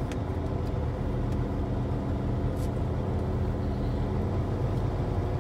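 Big rig's diesel engine running steadily while driving, with tyre and road noise, heard from inside the cab.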